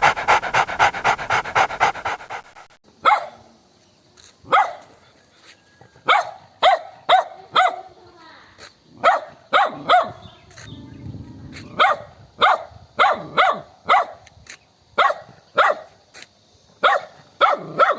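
A dog panting fast and evenly, about six breaths a second, cutting off abruptly about three seconds in. A dog then barks over and over in single and double barks with short pauses between.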